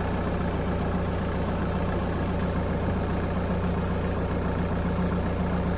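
Backhoe loader's diesel engine running steadily at an even speed, with a constant low hum.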